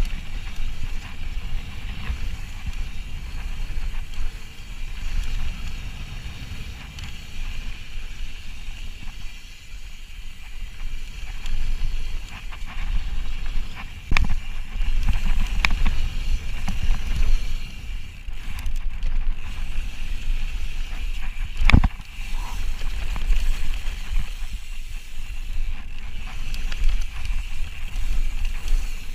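Ibis Ripley mountain bike descending a dirt trail at speed: a steady rumble of wind on the microphone and tyres rolling over dirt, with a few sharp knocks as the bike rattles over bumps, the loudest about 22 seconds in.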